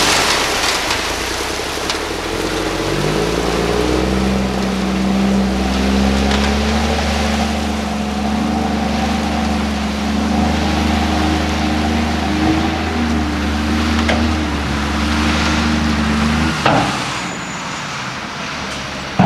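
Dump truck's diesel engine pulling as the truck creeps forward with its bed raised, crush-run gravel pouring out of the tailgate with a steady rattling hiss. The engine note climbs about three seconds in and then holds steady; near the end the engine sound drops away sharply with a knock, and a sharp bang comes right at the end.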